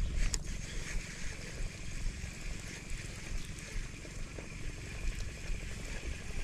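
Wind buffeting the microphone: a low, uneven rumble over a faint steady high background hum.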